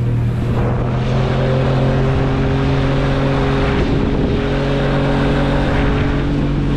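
Speed boat's outboard motor running at a steady cruising pitch, with water rushing along the hull and wind noise. The engine tone wavers briefly about four seconds in.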